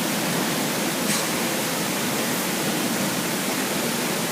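Dishwasher running its rinse, water spraying with a steady hiss.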